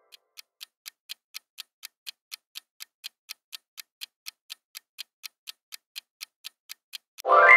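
Clock-style ticking sound effect of a quiz countdown timer: even, sharp ticks at about four a second. Near the end the ticking stops and a louder ringing tone sets in, rising in pitch at its start, marking the timer running out.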